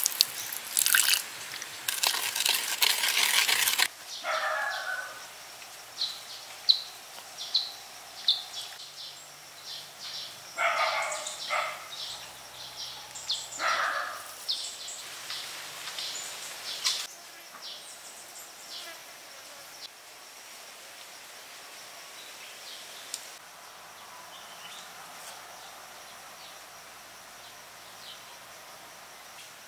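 For the first few seconds, a thin stream of water splashes into a clay bowl of crushed charcoal. Then birds chirp and call repeatedly with insects in the background, and the calls thin out in the second half.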